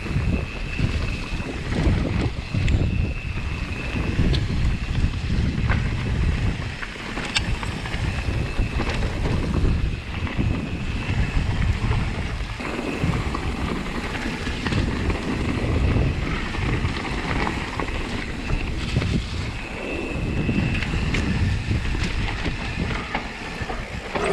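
Wind buffeting the microphone: a loud rumbling noise that swells and drops unevenly.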